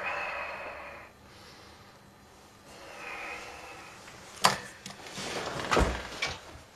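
Two soft breathy hisses as a man lights and smokes a cigarette. Then, from about four and a half seconds in, a sharp click followed by knocks and a low thump as he gets up from a wooden armchair.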